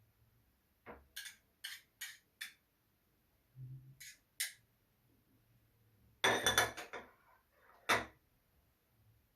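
Homemade slime being worked in the hands, giving a series of short sticky clicks and pops. About six seconds in there is a louder clatter, then one more sharp knock near the end.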